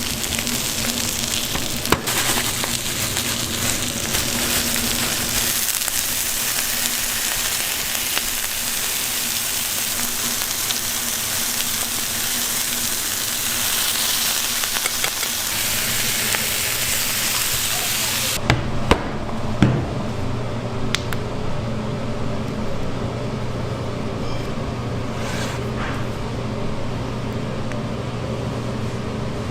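Food sizzling with a steady hiss for most of the stretch. After a sudden cut it gives way to a steady low hum with a few sharp clicks and knocks.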